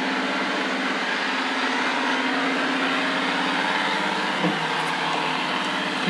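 Eufy RoboVac 30C robot vacuum running steadily, its suction fan and brushes giving an even whirring hum with no rattle now that the loose circuit board has been tightened down. There is a light knock about four and a half seconds in.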